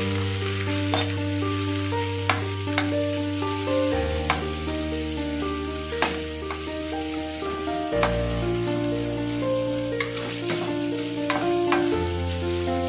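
Minced pork, garlic and chillies sizzling in hot oil in an aluminium wok, stirred with a spatula that scrapes and clinks sharply against the pan now and then. Background music plays along, its bass note changing every four seconds.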